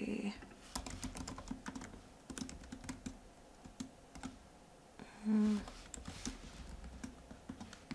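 Typing on a computer keyboard: irregular key clicks in short runs, with a brief voiced murmur about five seconds in.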